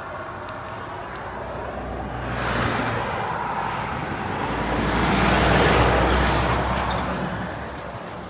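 Road traffic passing close by: two vehicles go past, each rising and fading, the second one, about halfway through, louder and longer than the first.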